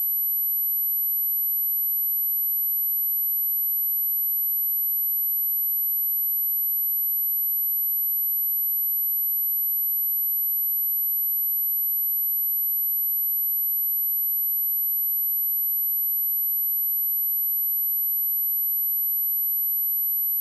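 A steady, very high-pitched 11815 Hz sine-wave test tone, held unchanged throughout.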